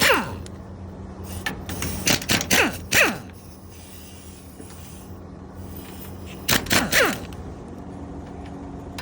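Pneumatic impact wrench with a 17 mm socket hammering in short bursts to loosen the bolts on an excavator's hydraulic filter housing lid. The bursts come at the start, twice more around two to three seconds in, and again near seven seconds, each ending in a falling whine as the tool spins down.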